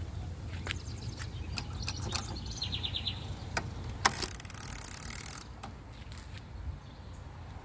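Remington Standard 12 typewriter mechanism being worked: scattered sharp clicks and knocks, and a quick run of ratcheting ticks about three seconds in. About four seconds in comes a hissing rasp of about a second and a half.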